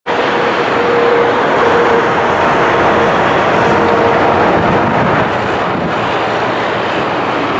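Loud, steady vehicle noise, easing slightly about five seconds in.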